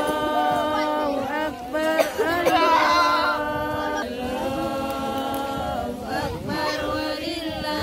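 Several voices singing or chanting together, unaccompanied, in long held notes that move from pitch to pitch.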